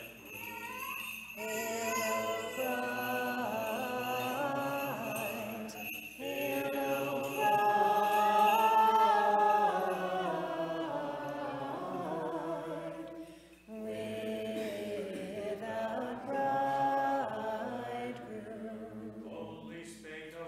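Unaccompanied Orthodox liturgical chant, sung in three long held phrases with two short breaks between them.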